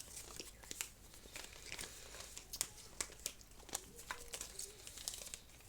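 Plastic wrapping crinkling and rustling as small toy pieces are handled, with scattered light clicks and crackles.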